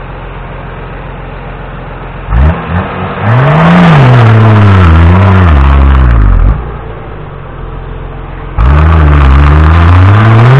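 Off-road Jeep Wrangler YJ's engine running steadily, then revved hard under load in two bursts as it claws up a muddy bank with its tyres spinning. The first burst comes about two seconds in and lasts about four seconds, its pitch rising and falling. The second starts near the end and keeps climbing.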